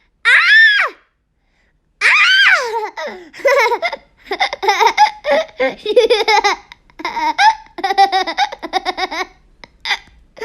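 A three-year-old child gives a short high squeal, then breaks into long belly laughter in rapid bursts of giggles.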